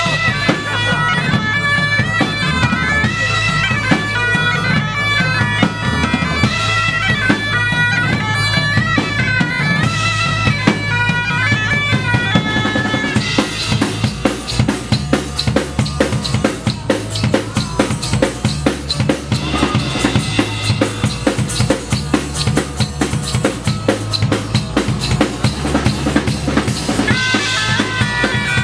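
Live folk-rock band playing bagpipes over a drone, backed by guitars and a drum kit. About 13 seconds in the pipe melody drops out, leaving a busy drum-kit groove with guitar and bass, and the pipes come back in near the end.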